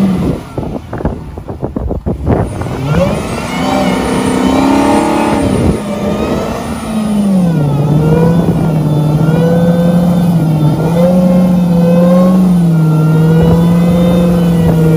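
Dodge Challenger SRT's HEMI V8 doing a burnout: a choppy clatter of knocks in the first couple of seconds, then the engine held at high revs with small dips in pitch while the rear tyres spin. A wavering higher whine runs over it.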